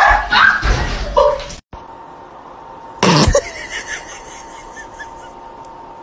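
A dog screaming loudly in the first second and a half, cutting off abruptly. About three seconds in comes a single short, sharp sneeze-like burst.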